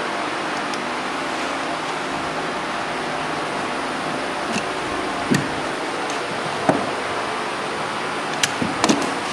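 Steady hiss of background noise with a few scattered clicks and knocks as flexible PVC pipe and fittings are handled. Near the end comes a quick cluster of sharp clicks as a pipe cutter closes on the flexible PVC hose.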